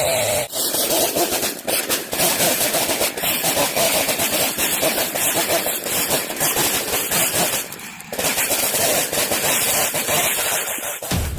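Two-stroke chainsaw running at high revs, cutting through a fallen fir log, its engine note dipping briefly about eight seconds in.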